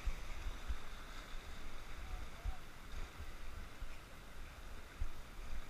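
Whitewater river rapids rushing around the raft, a steady hiss of fast water. Irregular low thumps of wind buffeting the microphone run through it.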